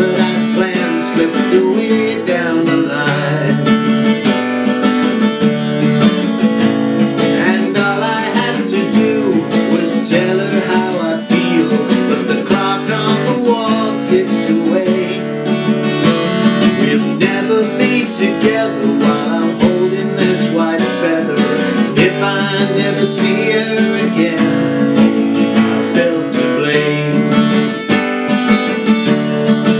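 Solo acoustic guitar with a capo, strummed steadily through a folk song's chords, with a man's voice singing along at times without clear words.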